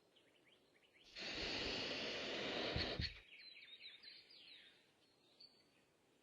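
Small birds chirping in short, falling calls. About a second in, a loud burst of rushing noise covers them for about two seconds, then cuts off sharply.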